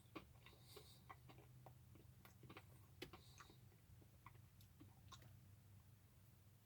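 Near silence: faint chewing of a snack cake, with scattered soft clicks over a low steady hum.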